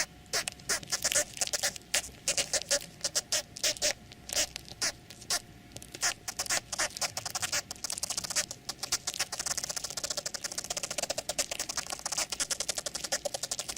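Close-up dry crackling and scratching presented as ants moving, the rubbing of their legs and mandibles. It comes as irregular quick clicks that thicken about halfway through into a rapid, dense patter.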